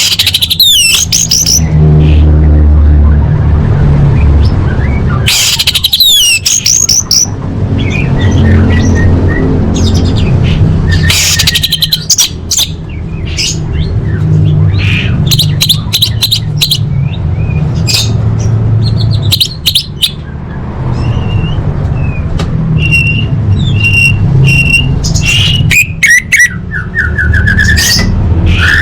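Orange-headed thrush singing: quick rising and falling whistled phrases and trills, with a run of repeated high notes in the second half, over a steady low hum.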